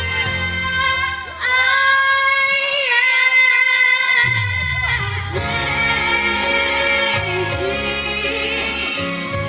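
Music with a female voice singing long held notes. The bass drops out about a second and a half in and comes back about four seconds in.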